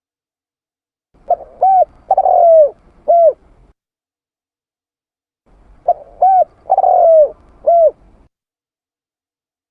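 Spotted dove (tekukur) cooing: two song phrases, each of four clear coos (two short, a longer falling one, then a short one), separated by a few seconds of silence.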